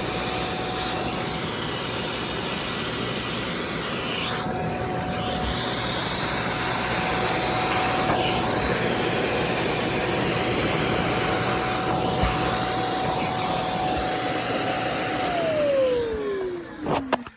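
Bissell Little Green Max Pet portable carpet cleaner's suction motor running steadily with a constant whine. Near the end it is switched off and the whine falls away as the motor spins down.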